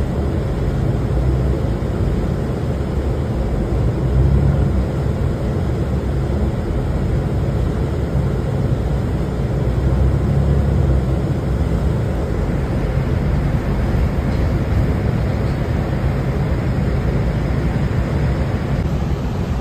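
Steady low rumble of a moving road vehicle heard from inside the cabin: engine and tyre noise on a wet, flooded road, with a steady hiss above it.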